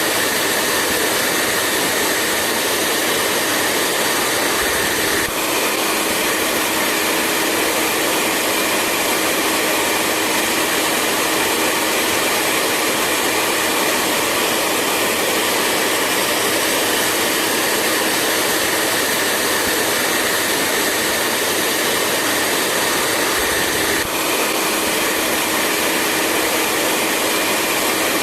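Hair dryer blowing steadily, a continuous airy rush with a faint hum under it, with a slight shift in its tone about five seconds in and again near the end.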